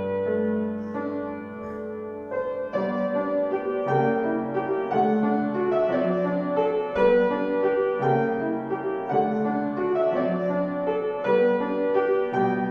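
Piano playing slow, sustained chords and a melody: a calm instrumental piece.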